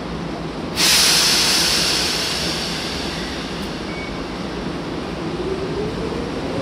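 Tokyu 8500 series electric train: a sudden loud hiss of air about a second in that slowly fades, typical of the air brakes releasing after the doors close. About five seconds in, the traction motors start a steadily rising whine as the train pulls away.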